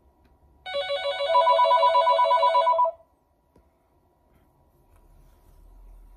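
Electronic telephone ringing: one warbling ring of about two seconds, starting about a second in.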